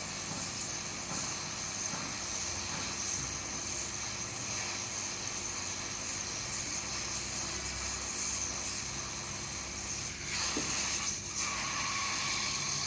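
Hot-air rework blower hissing steadily as it heats a phone motherboard to free a soldered SIM card reader. About ten seconds in, the hiss grows a little louder.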